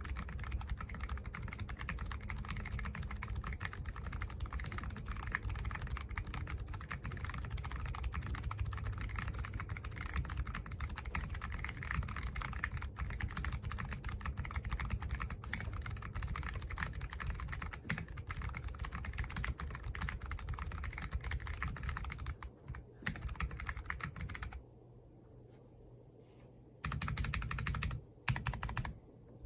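Typing on an Akko Alice Pro Plus mechanical keyboard with a polycarbonate plate and tactile Sponge switches: a fast, continuous run of key clacks. It stops for about two seconds near the end, then resumes.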